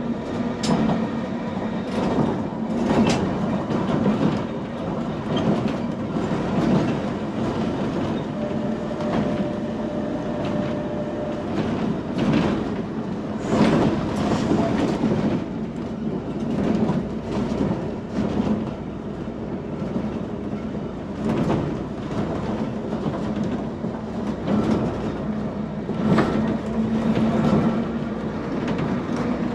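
Manx Electric Railway electric tramcar running along the track, heard from the driver's platform: a steady running hum, with the wheels knocking over rail joints at irregular intervals. A brief thin squeal comes about a third of the way in.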